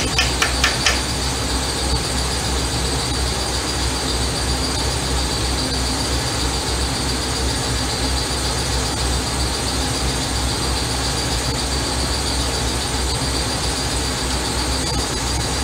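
Steady machine noise with a constant high whine over a low hum, running unchanged throughout. A fast run of sharp clicks, about six a second, stops about a second in.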